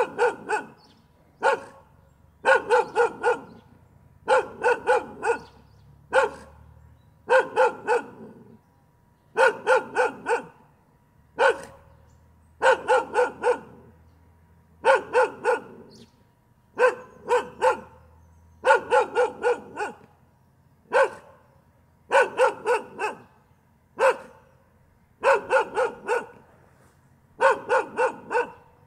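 A dog barking over and over in quick runs of two to four barks, with short pauses between the runs and an occasional single bark.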